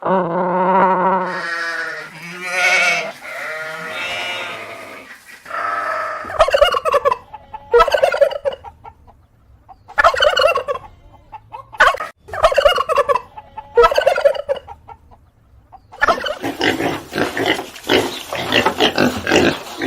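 Poultry calling: a long wavering call at first, then short rapid warbling calls about every two seconds, and a dense run of overlapping calls near the end.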